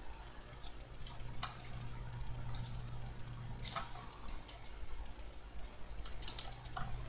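Computer mouse buttons clicking, an irregular scatter of sharp single clicks and quick runs of two or three. Underneath is a steady low electrical hum and a faint high-pitched whine.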